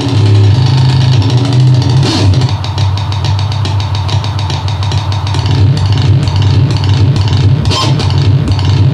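Harsh analogue electronic noise from a REON Driftbox S synthesizer run through a BOSS Metal Zone distortion pedal and a Sherman Filterbank 2. A heavy low distorted drone runs throughout under a gritty hiss. Over the second half it breaks into a fast, irregular stuttering flutter as the filter knobs are worked.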